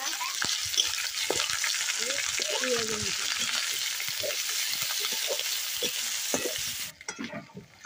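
Sliced onions sizzling in hot oil in a metal kadai, with a metal spatula scraping and knocking against the pan as they are stirred. The sizzle cuts off abruptly near the end.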